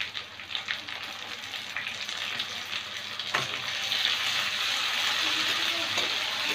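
Sliced onions and chopped tomatoes sizzling in hot oil in a kadai, stirred and scraped with a metal spatula, with a few clicks of the spatula against the pan. The sizzle grows louder and steadier about four seconds in as the tomatoes are turned into the oil.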